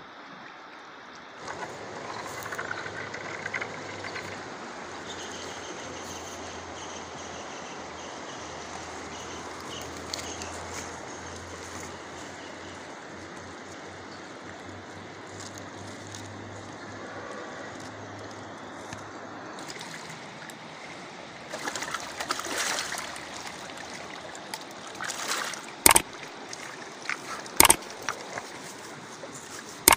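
River water rushing steadily over a stony bed, with two sharp knocks near the end.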